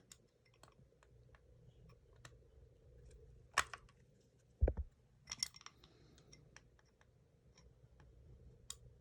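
Scattered small clicks and taps of a hex key working a screw and metal parts being handled, clearest a little past three seconds in and again after five, with a dull thump between them.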